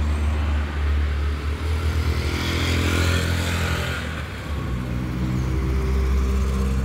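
A motor vehicle passing by on the street: its engine and tyre noise swell to a peak about three seconds in and fade away, over a steady low rumble.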